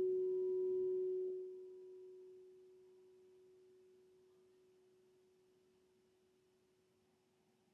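Quartz crystal singing bowl ringing one low, pure tone after a single strike; the tone holds strongly for about a second and a half, then drops and fades away slowly.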